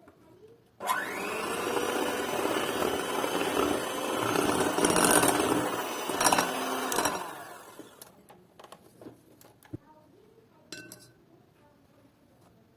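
Electric mixer switched on about a second in, its motor whine rising quickly to a steady speed and running for about six seconds before winding down. A few light clicks and clinks follow.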